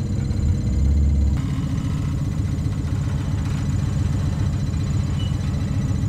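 Off-road vehicle's engine running low and steady as it crawls over rocks, with a heavier rumble in the first second or so.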